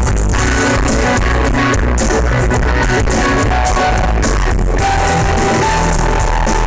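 Loud rock music: electric guitar, bass and drum kit playing an instrumental passage with no vocals.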